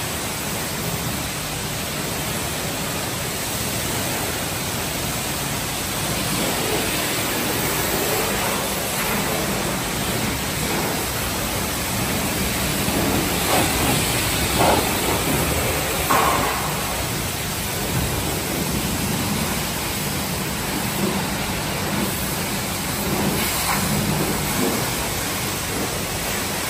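High-pressure water jet from a self-serve car wash spray wand hitting a minivan's body and wheels: a steady hissing spray, briefly louder a few times around the middle.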